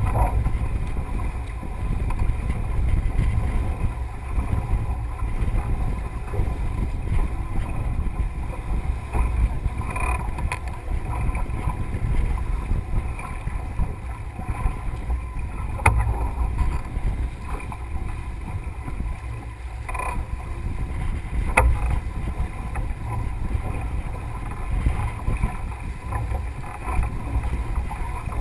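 Wind buffeting the microphone and water rushing along the hull of a Melges 24 sailboat under way, a steady low rumble broken by a few sharp knocks.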